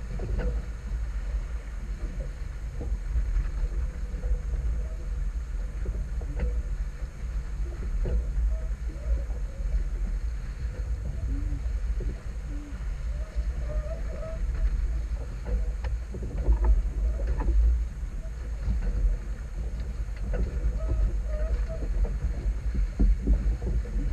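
Wind rumbling on the microphone aboard a small sailboat under sail, with water rushing along the hull and a few scattered knocks and creaks from the boat.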